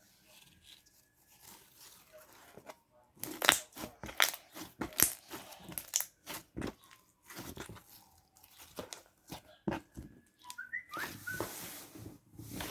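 Slime being squished and stretched by hand, with irregular sticky crackles and clicking pops as air bubbles in it burst. The noise comes in two louder clusters, a few seconds in and near the end.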